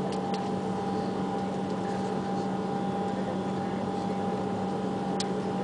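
Airbus A330-200 jet engines heard from inside the passenger cabin as the airliner rolls along the ground: a steady hum with a few fixed tones over a broad rush of noise. A few light clicks sound near the start and once about five seconds in.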